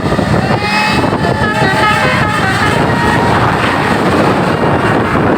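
A bus passing close: loud engine and road noise, with a short run of musical multi-tone horn notes between about one and three seconds in.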